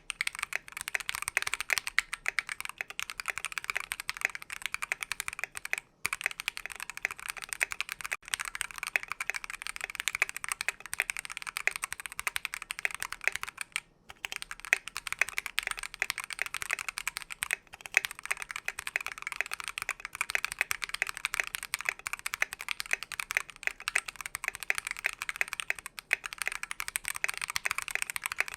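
Fast continuous typing on a mechanical keyboard with a brass plate and lubed NovelKeys Silk Yellow linear switches, a dense run of keystroke clacks, pausing briefly twice.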